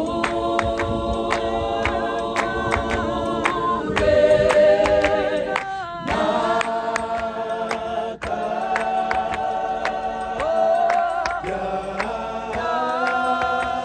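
An a cappella clap-and-tap choir sings long held chords in phrases, with sharp claps and taps keeping time throughout.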